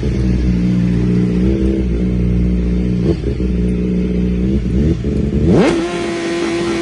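Sports motorcycle engine running with short throttle blips, then revving sharply up about five and a half seconds in and holding high revs.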